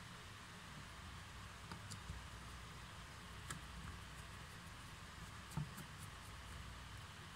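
A few faint, scattered metallic clicks of a screwdriver turning the small Phillips screws on the front gearbox plate of a cordless drill, over a steady low hiss.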